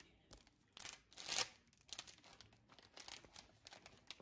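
Cookie snack wrapper being crinkled and torn open by hand, in a run of irregular rustles and rips, the loudest and longest a little over a second in.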